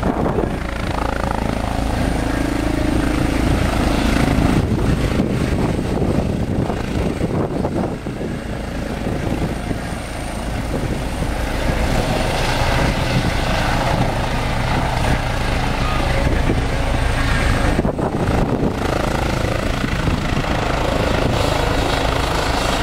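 Eurocopter EC135 helicopter landing, with steady rotor and turbine noise and a thin high turbine whine as it hovers low and settles onto its skids.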